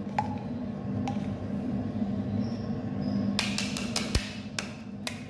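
Thin metal spatula scraping and tapping inside a plastic centrifuge tube to clear out a fungal mycelium pellet: a few scattered clicks, then a cluster of sharp taps between about three and a half and five seconds in. A steady low hum runs underneath.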